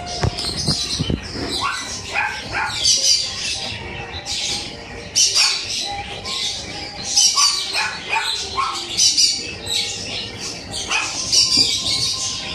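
Puppies yipping and barking in short, high-pitched bursts, repeating irregularly about once a second over a background hum.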